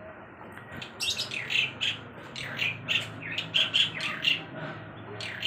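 Birds chirping and squawking in a rapid run of short, high calls that starts about a second in and keeps going.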